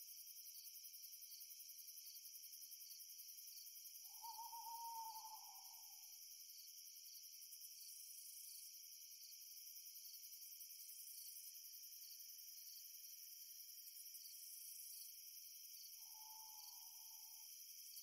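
Faint steady chorus of crickets chirping, with an owl hooting twice: one long hoot about four seconds in and another near the end.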